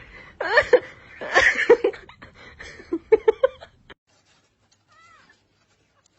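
A domestic cat meowing, several curving calls over the first few seconds. The sound cuts off suddenly about four seconds in, and one faint call follows about a second later.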